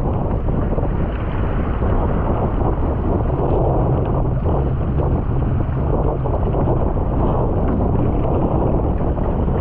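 Strong wind buffeting the microphone, with water rushing past a surfski hull. It is a loud, steady rumble with no breaks.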